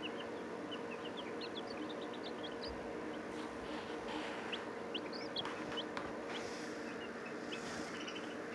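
A young chicken chick peeping: a quick run of short, high chirps that thins out in the second half, with soft rustling as it is handled.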